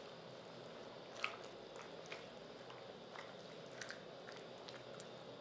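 Spoon stirring cubed raw turnips into a wet spinach and chicken curry in a pot: soft squelching with a few light clicks of the spoon, over a faint steady hiss.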